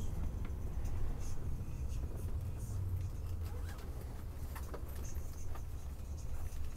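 Low, steady rumble of a Setra coach's diesel engine and running gear heard inside the cabin as it rolls slowly, with a few faint clicks and rattles.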